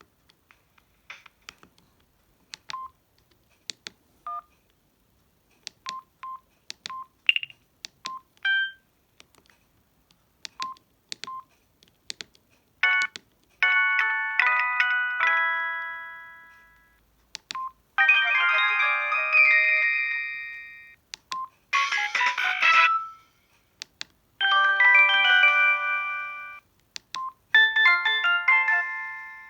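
Samsung SGH-D600 mobile phone's keypad tones: scattered clicks and short single beeps as keys are pressed. About a dozen seconds in, a run of its message alert tones begins: short synthesized melodic jingles played one after another, each a second or two long with brief gaps between.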